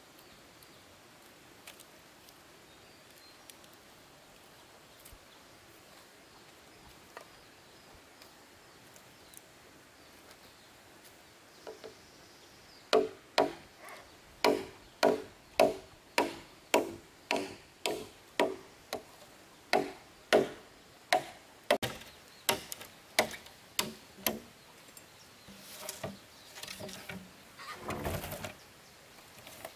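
A tool striking wood in a steady run of blows, about two a second, each with a short ringing knock; the blows start about halfway through after a quiet stretch and last some twelve seconds. Near the end there is rustling and scraping.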